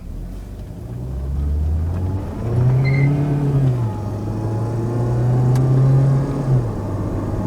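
2001 Volvo S40 1.9T's turbocharged four-cylinder engine revved up and held twice, then settling back toward idle. It revs cleanly now that the misfire has been cured with new ignition coils and wires.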